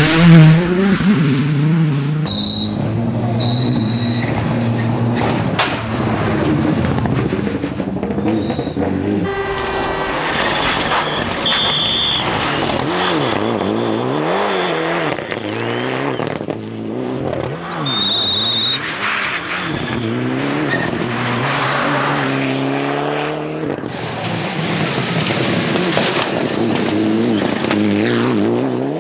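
Mitsubishi Lancer rally car's turbocharged four-cylinder engine revving hard, its pitch rising and falling again and again through gear changes as the car passes on a special stage, with a few short high-pitched squeals.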